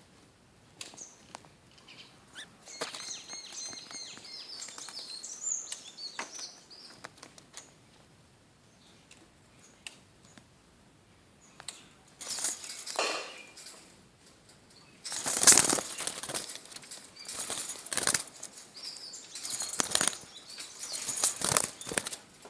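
Pet lovebirds: a run of short, high chirps a few seconds in, then from about halfway several loud bursts of fluttering wing flaps.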